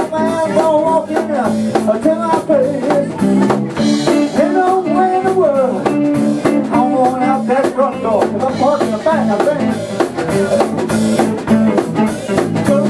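Live blues band playing: electric guitars, bass and a drum kit, with a flute carrying the wavering lead melody over the top.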